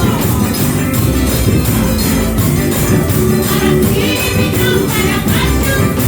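Lively gospel music with tambourine jingles keeping a steady beat and voices singing.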